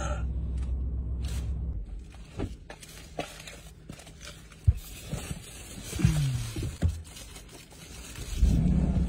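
Paper food wrapper crinkling and rustling, with scattered small clicks and knocks. A steady low hum stops about two seconds in and a louder low hum comes in near the end.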